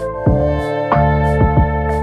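Background music: a soft instrumental track with plucked guitar-like notes and chord changes about every half second.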